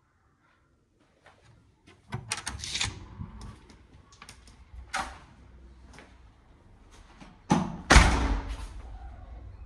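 Wooden flat front door being unlatched and opened, with sharp clicks and clatter of the lock and handle about two seconds in. A loud thud follows near the end.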